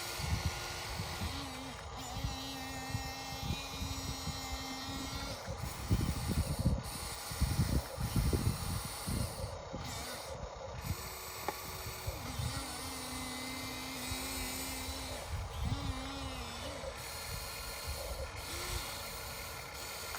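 Remote-controlled excavator's electric motor whining in spells, its pitch stepping up and down as the machine moves, with rough scraping and knocking of dirt about six to nine seconds in.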